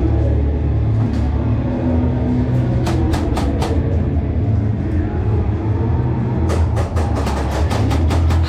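An airsoft rifle firing: a short burst of about five shots about three seconds in, then a longer rapid burst of over a dozen shots near the end, over a steady low rumble.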